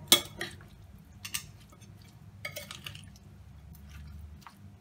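A metal spoon stirring thick bitter gourd pickle in a cut-glass bowl: a few irregular clinks and scrapes of the spoon against the glass, the loudest right at the start.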